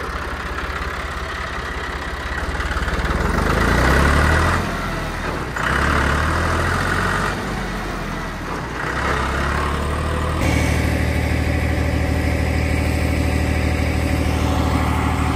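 Tractor engine running while working. Its speed picks up about three to four seconds in, rises and falls for several seconds, and then runs steady from about ten seconds in.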